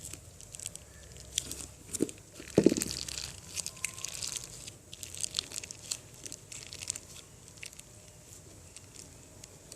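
Plastic bottle of white PVA glue being squeezed and emptied into a container: scattered small clicks and crinkles of the plastic, with one brief squeak a little under three seconds in, the loudest sound.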